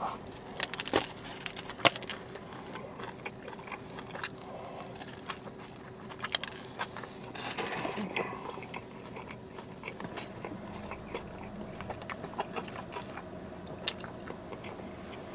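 Biting into and chewing a cheesesteak on a crusty seeded roll. Irregular mouth clicks and a few sharp crunches of the crust are heard, one of the loudest near the end.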